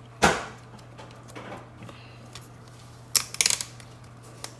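Scissors snipping at a slap bracelet: one sharp click about a quarter second in, then a quick cluster of clicks about three seconds in.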